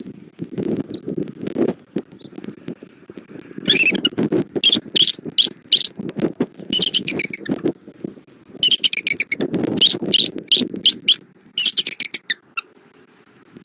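Bald eagles calling in several quick runs of high-pitched chirping notes, over the low rumble of strong wind buffeting the microphone.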